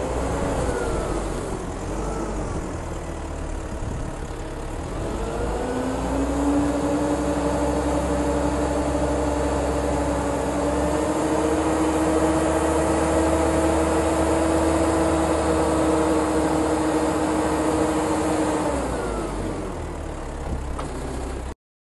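LPG-fuelled engine of a 1992 Kalmar GC4,5-500 forklift running. About five seconds in it revs up and holds a steady higher pitch for some thirteen seconds while the hydraulics raise and lower the forks on the mast, then drops back near the end. The sound cuts off abruptly just before the end.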